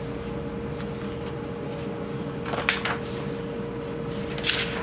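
Steady hum of a small room carrying a constant mid-pitched tone, with two brief soft hissing rustles, one just past halfway and one near the end.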